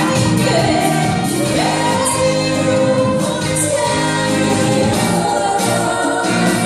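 A woman singing a Korean song live into a handheld microphone, her amplified voice carrying a held, gliding melody over instrumental accompaniment.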